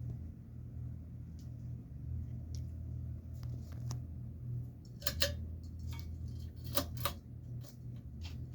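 Global Winds Alaska 52-inch ceiling fan running with a low, wavering motor hum. A few sharp clicks come about halfway through and again a second or two later.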